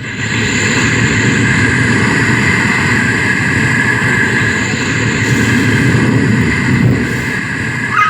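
A performer's vocal imitation of a Breton seaside atmosphere: a loud, steady rushing noise, like wind and surf, that starts suddenly and holds unbroken.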